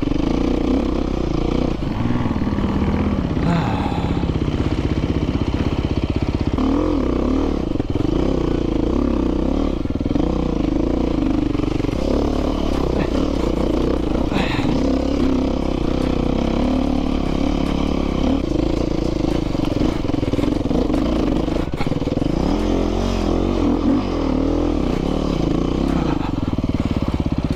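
Dirt bike engine running under load on a rough trail, its revs rising and falling continually as the rider works the throttle.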